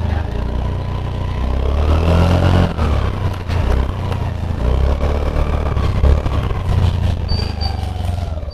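Motor scooter on the move, engine pitch rising and falling, with heavy wind rumble on the microphone.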